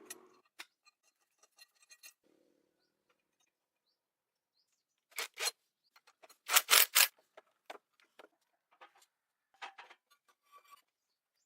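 Sharp knocks and clicks at irregular intervals, typical of metal parts and tools being handled: two knocks about five seconds in, then a louder quick cluster of several a second later, with faint ticks between.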